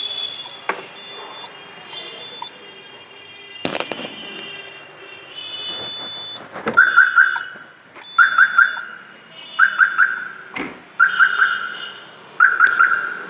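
Aftermarket vehicle security alarm siren sounding: high steady tones at first, then from about halfway in a repeating chirp pattern of three or four quick pulses about every second and a half. Two sharp knocks are heard, one a little before and one a little after the chirping starts.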